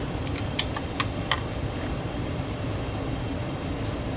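Steady low background hum, with a few light clicks of small parts and a tool being handled, most of them in the first second and a half.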